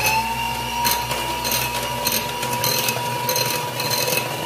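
Electric hand mixer running at a steady speed, its beaters whirring in a glass bowl of cake batter, with a scratchy rattle that comes and goes over its steady whine.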